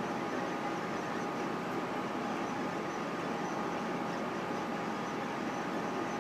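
Solidoodle 3 desktop 3D printer running mid-print: a steady whir from its fans and stepper motors, with two steady high tones over it.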